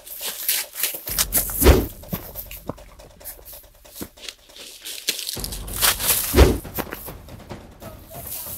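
Dry grass rustling and crunching in irregular bursts, with two heavy thuds, one about two seconds in and one about six and a half seconds in.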